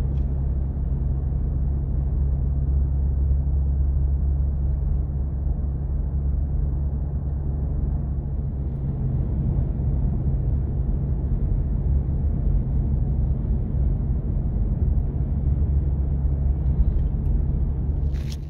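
Steady low rumble of engine and road noise heard inside the cabin of a Nissan Xterra driving along a paved road.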